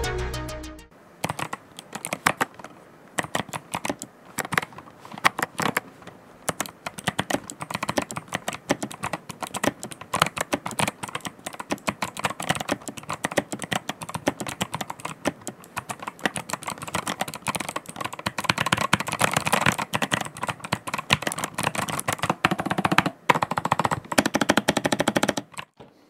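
Fast, continuous typing on an 8BitDo Retro mechanical keyboard with clicky switches, a dense stream of sharp key clicks. Background music fades out about a second in, before the typing starts.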